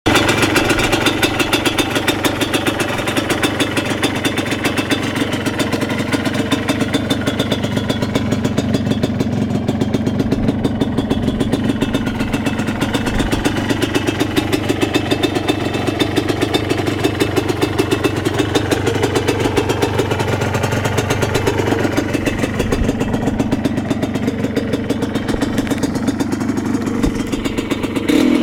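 Yamaha WR200's two-stroke single-cylinder engine idling steadily, with a fast, even pulsing beat.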